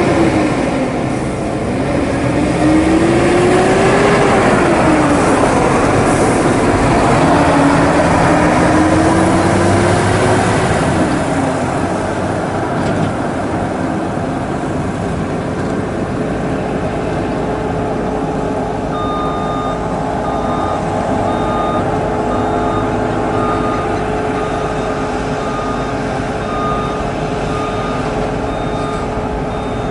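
Heavy Volvo hauling truck's diesel engine working under load, its pitch rising and falling several times as it revs through the gears, then settling to a steadier note. From about two-thirds of the way in, a reversing-type beeper sounds about once a second over the engine.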